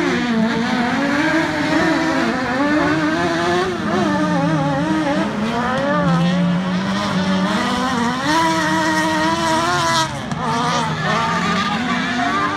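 Autocross race cars running flat out on a dirt track. Several engines rev up and down through the gears, their pitch rising and falling over and over, with a brief drop about ten seconds in before the revving picks up again.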